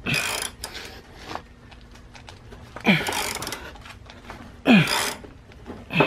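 A man grunting with effort four times, each a short strained grunt falling in pitch with a rush of breath, as he heaves on a socket wrench to turn out a stuck broken drain-valve stub. Faint clicks come between the grunts.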